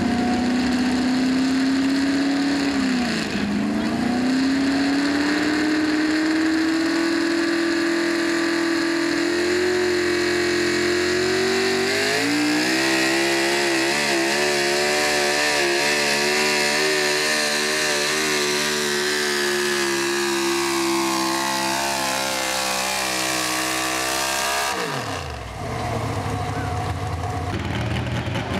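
Modified four-wheel-drive pickup truck's engine at full throttle pulling a weight-transfer sled. Its pitch dips sharply about three seconds in, climbs back and holds high with a wavering beat, then drops away suddenly near the end. A lower engine idles briefly after that.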